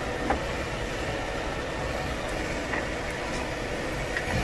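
A steady mechanical hum, like a running fan, with a few faint soft clicks as halved green yuzu are squeezed by hand into a stainless steel bowl.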